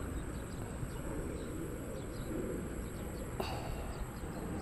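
Small birds chirping in short, scattered calls over a steady low background rumble, with a single sharp click about three and a half seconds in.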